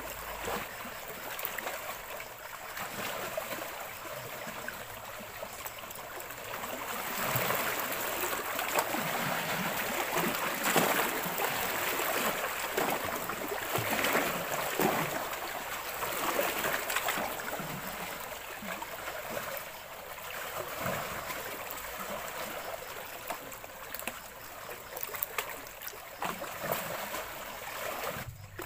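Small lake waves lapping and splashing against shoreline rocks, a steady rushing wash that swells a little louder for several seconds in the middle.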